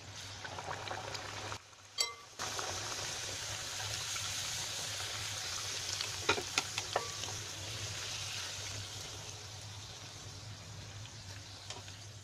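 Hot oil sizzling steadily as spinach puris deep-fry in a kadhai. A few sharp clicks of a steel slotted spoon against the pan come about six to seven seconds in, and the sizzle drops out briefly about two seconds in.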